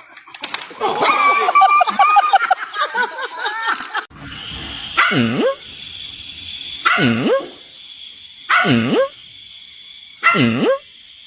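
A dog vocalizing: a wavering, whining stretch first, then, from about four seconds in, four short barking calls about every second and a half to two seconds, each dipping and then rising in pitch.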